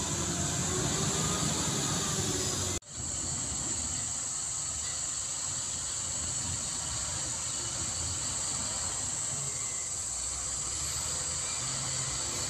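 Distant truck engine running as a loaded dump truck climbs a muddy track, a low steady rumble under a constant high hiss. The sound cuts out for an instant about three seconds in, then carries on the same.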